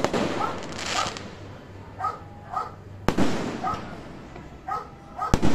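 Aerial firework shells bursting: a sharp boom at the start, another about three seconds in and a double boom near the end, each followed by fading crackle. Short repeated barks sound in the gaps between the bursts.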